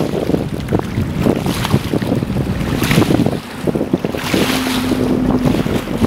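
Small waves lapping and splashing over rocks at the water's edge, with gusting wind buffeting the microphone.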